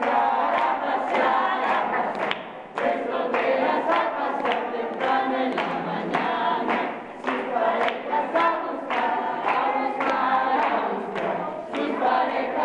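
A group of people singing a game song together, with hand claps keeping time.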